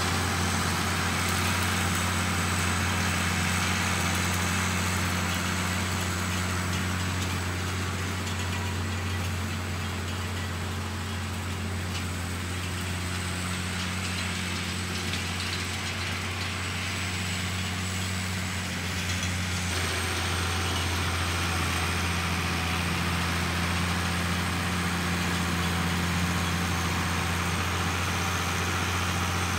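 Farmall 1066 tractor engine running steadily, pulling a rotary mower through grass, with no exhaust pipe fitted. It grows a little fainter through the middle as the tractor moves off, then louder again from about two-thirds of the way in as it comes back.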